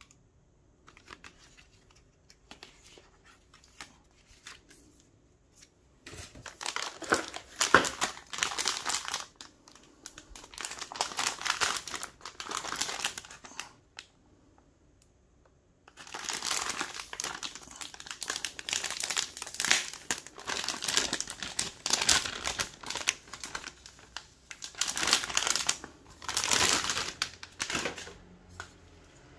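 Packaging being handled and crinkled during the unboxing of a graphics card: light handling noises at first, then two long stretches of loud rustling and crinkling with a short pause between them.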